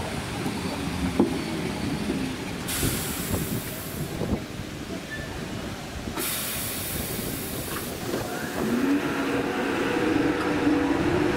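Class 313 electric multiple unit: a low rumble with two hisses of compressed air a few seconds apart, then, near the end, a rising whine from its traction motors as it starts to pull away.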